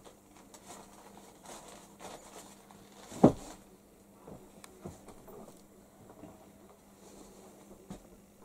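Light scratching and pattering of small animals moving on the wooden boards and cardboard of a dove's nest box, with one sharp knock about three seconds in.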